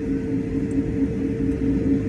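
Steady cabin drone inside an Airbus A220-300 on the ground: a low rumble with two steady humming tones, one slightly pulsing, from the idling engines and the cabin air system.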